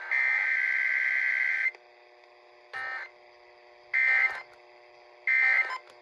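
Emergency Alert System SAME header data burst, a harsh digital screech near 2 kHz, played over a radio tuned to AM and ending just under two seconds in. Then short electronic alert beeps sound three times, about 1.3 s apart, over a faint steady hum.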